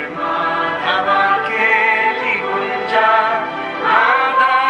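Devotional singing over music: a voice holding long notes with wavering pitch.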